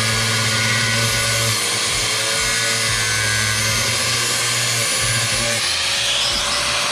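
Angle grinder cutting disc grinding through corroded steel of a car seat's mounting, a steady loud cut.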